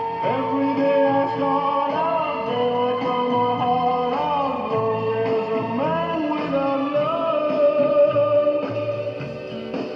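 A song playing back from a restored Belair 8-track cartridge player: a singer over guitar and a steady beat.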